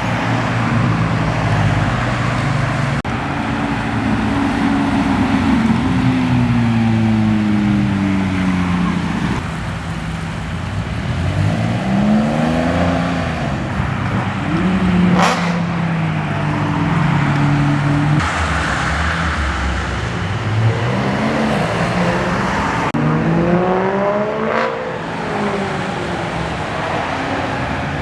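Cars driving out one after another, their engines revving and accelerating as they pass, the pitch rising and falling with each pass. Two sharp cracks stand out, one about fifteen seconds in and another near twenty-five seconds.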